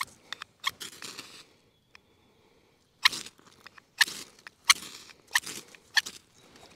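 Sharpened steel knife spine struck hard down a ferro rod to throw sparks: a series of quick, harsh scrapes, each with a bright hiss, with a pause of about a second and a half in the middle.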